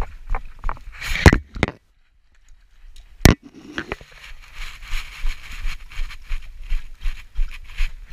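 A dog lapping water from a toilet bowl in quick rhythmic laps, about three or four a second, with one sharp knock about three seconds in after a short break in the lapping.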